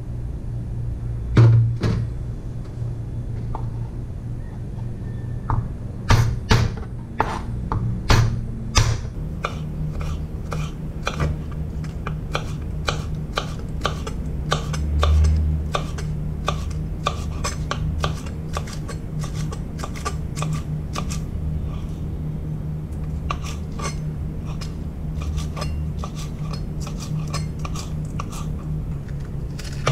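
Kitchen knife slicing a green onion on a plastic cutting board: an even run of crisp taps, about three a second, starting some nine seconds in. Before that come a few louder single knocks.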